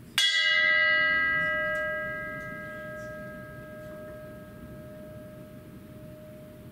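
A bell struck once, then ringing on and fading slowly, its lowest tone lasting longest. It is a remembrance bell, rung after a name of the departed is read.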